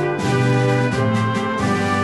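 Background music: held, pitched notes at a steady level, changing every half second or so.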